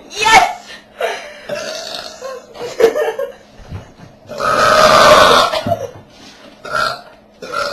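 A girl burping after drinking carbonated soda: several short burps and one long, loud belch lasting over a second about halfway through.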